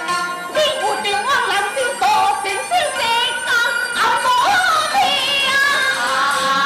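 Teochew opera music: a high melody line that slides and wavers in pitch, over the ensemble's held accompaniment.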